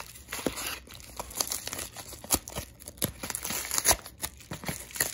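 Yellow padded bubble mailer being torn open by hand: irregular paper tearing and crinkling with sharp crackles, the loudest snap about four seconds in.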